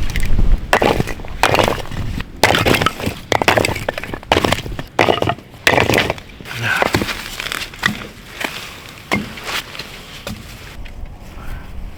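Split firewood logs being handled and stacked, knocking and cracking together in quick, irregular clatters, with crunching in frozen snow; it thins out near the end.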